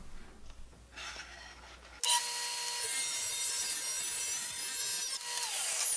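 Table saw starting up about two seconds in and running with a steady high whine while ripping a thin poplar strip with a push stick. Near the end the sound starts to fall away as the saw is switched off.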